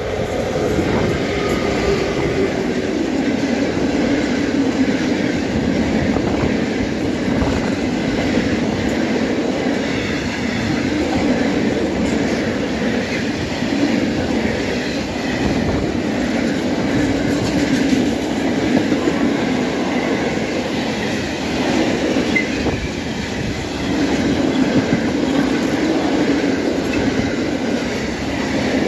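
Freight train of Eaos open wagons passing close behind an ET42 twin-section electric locomotive, its wheels running on the rails in a steady loud rolling noise. The noise swells as the locomotive comes past at the start and then holds steady as the wagons go by.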